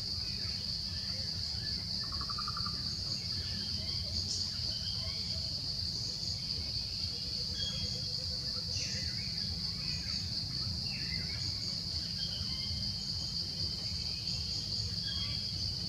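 Steady high-pitched insect chorus, with scattered short bird chirps and calls over it and a low steady rumble underneath.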